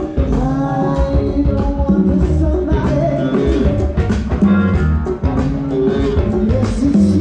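Live band playing Afro-Latin funk: a singer over guitar and drums.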